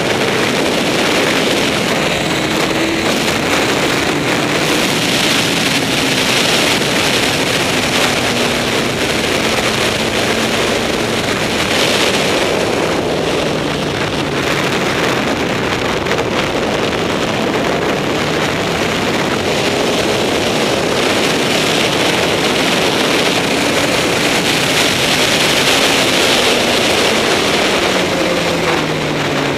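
Honda CBR954RR's inline-four engine running hard, largely buried under wind rushing over the microphone. The engine note falls steeply near the end as the bike slows.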